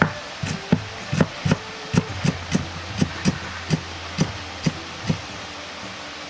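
Chinese cleaver chopping fresh ginger into small pieces on a cutting board: a string of about fourteen sharp knocks, roughly three a second and a little uneven, that stops about five seconds in.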